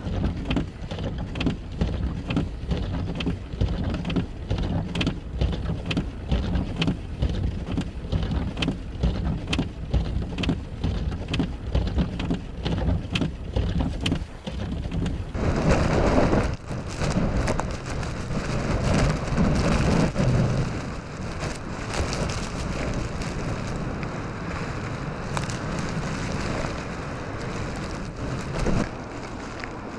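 Blizzard noise: wind-driven snow ticking sharply and irregularly against a surface over a low vehicle rumble. About halfway through this gives way to strong wind gusting and buffeting the microphone.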